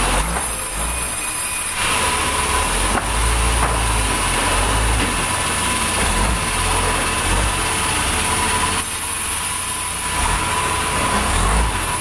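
Vertical band saw at a sawmill running and cutting through a large white-wood timber: a continuous rasp of the blade in the wood over the steady drone of the mill's drive. The cutting noise eases for a moment near the start and again about nine seconds in, while the machine keeps running.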